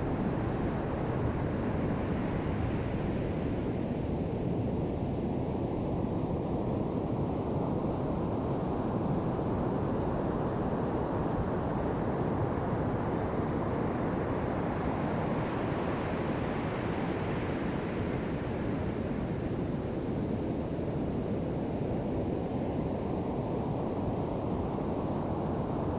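Ocean surf washing onto a beach: a steady rush of water that swells twice, about two seconds in and again around sixteen seconds, as waves break.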